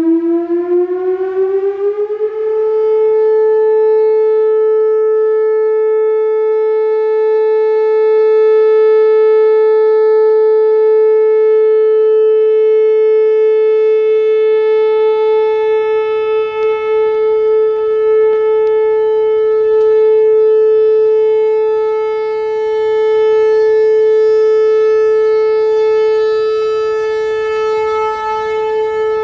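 Whelen Vortex R4 electronic outdoor warning siren sounding a steady alert. It rises in pitch over the first couple of seconds, then holds one loud, unwavering tone rich in overtones. It is driven by an early ESC-2020 controller with the 435 Hz glitch, so the tone sits at 435 Hz with audible clipping.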